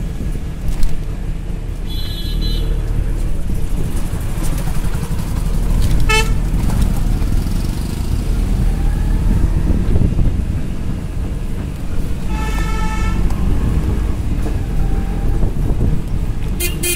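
Auto-rickshaw ride heard from inside: a steady low rumble of the engine and road. Short vehicle horn toots sound four times, about two seconds in, a quick one around six seconds, a longer one around twelve to thirteen seconds, and one at the very end.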